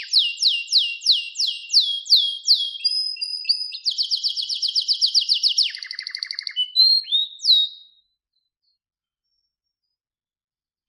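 Domestic canary singing: a run of falling whistled notes, then a fast trill and a lower rattle. The song stops about eight seconds in.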